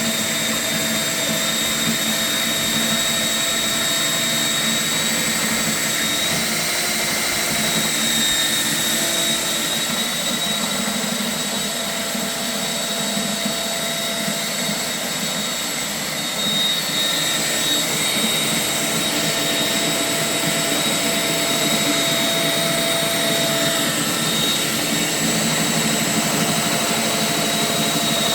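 Goldsnake GS6/30 flex-shaft drain-cleaning machine running steadily with a constant high whine as the shaft spins inside the drain pipe. The operator takes the free-running sound as a sign that the pipe is now clear.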